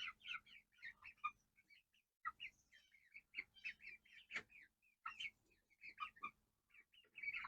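Young American Bresse chickens peeping, many short, faint chirps scattered through the flock.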